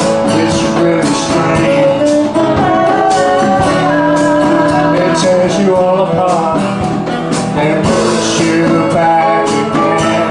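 Live acoustic band music: strummed guitar with steady percussion, and a voice singing held notes.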